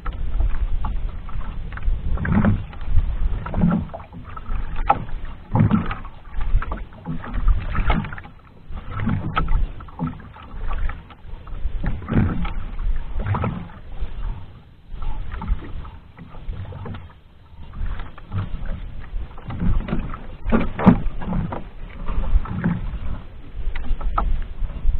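Small wooden outrigger canoe rocking on the sea: water slapping and lapping against the hull in uneven surges, with scattered knocks on the boat.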